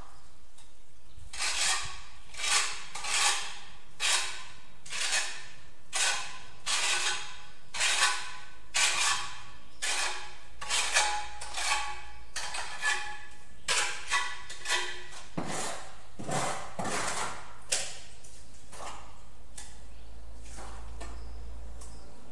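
Steel trowel scraping and working mortar in quick repeated strokes, a little more than one a second, each with a faint metallic ring. The strokes stop about eighteen seconds in.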